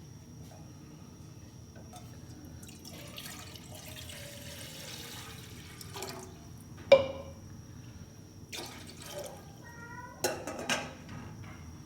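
Water pouring for a few seconds, then a loud ringing knock of kitchenware about seven seconds in and two quicker knocks near the end.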